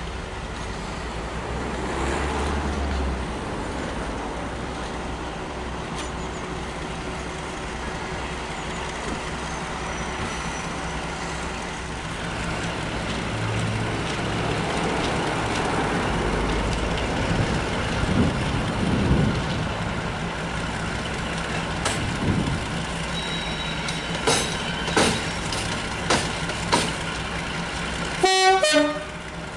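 Class 42 Warship diesel-hydraulic locomotive running steadily as it approaches at low speed. A few short sharp clanks come late on, and a brief loud toot-like burst just before the end.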